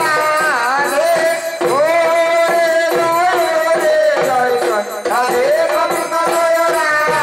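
Bengali devotional folk music: high, drawn-out melodic notes that bend and glide, most likely a sung line, over steady beats on a barrel drum with jingling hand percussion.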